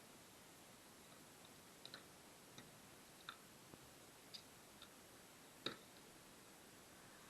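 Faint, irregular clicks and taps of small hard parts being handled during disassembly of a hair dryer, about eight in all, the loudest near the end, over a quiet steady hiss.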